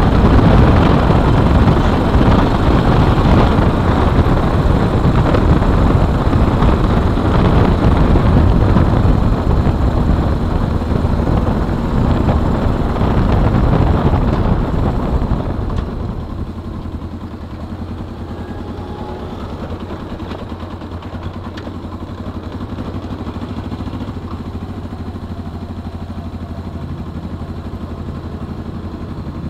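Suzuki GS 500E's air-cooled parallel-twin engine running while the motorcycle is ridden at speed, with a loud spread of engine and air noise. About halfway through the sound drops sharply as the bike slows, leaving the engine running quietly at low speed.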